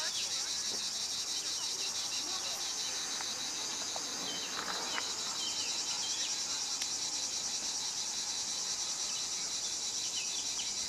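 Steady, shrill chorus of insects: a continuous high buzz with a fast, even pulse that does not let up.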